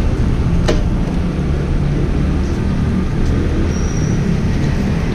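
Motor scooter engine idling with a steady low rumble, and a single sharp click a little under a second in.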